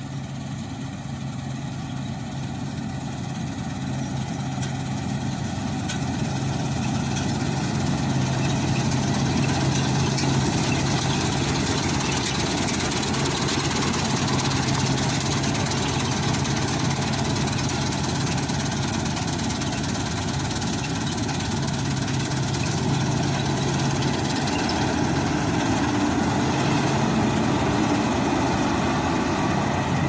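New Holland 8070 combine harvester running while cutting standing grain: a steady low diesel hum under the dense noise of its header and threshing machinery. It grows louder over the first several seconds as the machine comes close, then holds steady.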